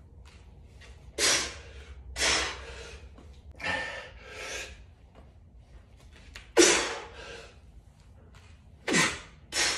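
A man breathing hard under exertion, with seven short, forceful exhalations about a second apart while lifting a kettlebell through squats and presses. The loudest breath comes about six and a half seconds in, and one near the end trails into a short falling grunt.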